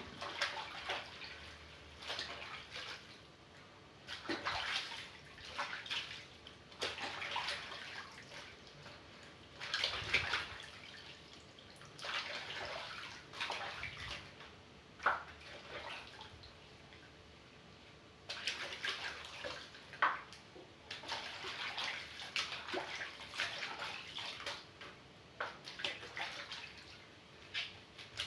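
Water sloshing and splashing in a basin in irregular bursts, as leafy collard greens are washed by hand.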